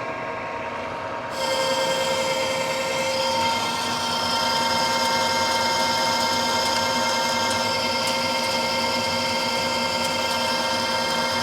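Precision Matthews lathe running under power feed, with a steady whine of gears and motor. About a second in, the sound steps up as the tool starts cutting the rough water-jet edge of a metal pipe flange, and the cut then goes on steadily.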